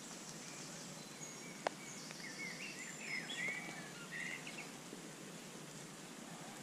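Faint riverside ambience: a steady hiss with birds chirping and singing through the middle, and one sharp click about a second and a half in.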